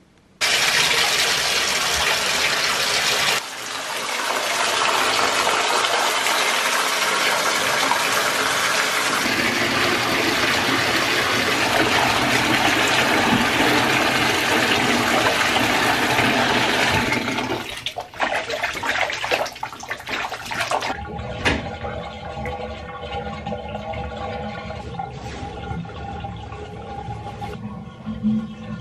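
Water running hard and steadily into a bathtub for about seventeen seconds, then stopping. Quieter background music with steady tones follows.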